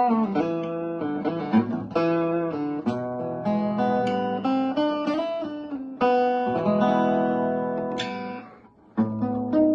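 1950s–60s TWIST archtop guitar being played unaccompanied: picked single notes and chords, each left to ring. The playing dies away almost to nothing about a second before the end, then resumes.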